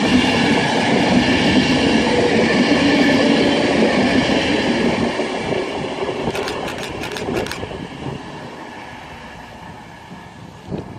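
Class 390 Pendolino electric train passing slowly, with a steady hum of several tones over running noise that fades away from about halfway through. A short run of clicks comes about six and a half seconds in.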